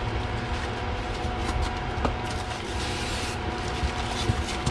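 Styrofoam packing blocks and plastic-bagged parts handled in a cardboard box: rustling and scraping, with a few sharp knocks, over a steady background hum.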